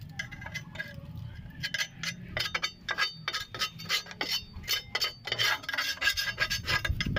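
Flathead screwdriver scraping caked dirt and grease off a truck's steel drum-brake backing plate around the wheel hub: an irregular run of short scrapes and clicks.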